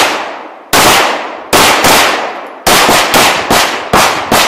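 Semi-automatic pistol being fired repeatedly: about three shots roughly a second apart, then a quicker string of about three shots a second. Each shot trails off in echo.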